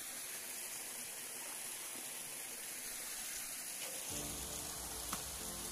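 Steady rushing of a small stream flowing over rocks. Background music with sustained tones comes in about four seconds in.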